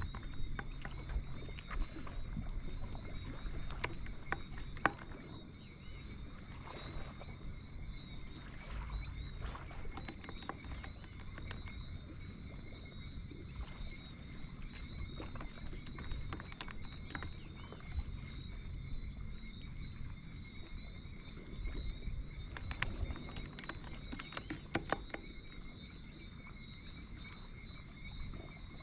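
A steady, high-pitched chirping chorus of small night creatures, with a low hum during the first five seconds or so and scattered clicks and knocks.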